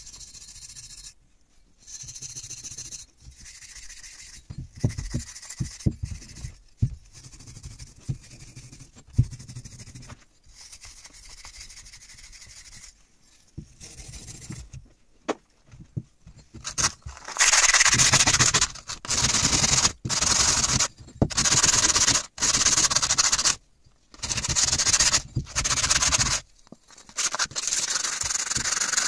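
A small hand wire brush scrubbing rust off an old steel axe head in quick strokes. From a little past halfway comes a much louder rasping in passages of about a second each, as the rusty steel is rubbed with abrasive sandpaper.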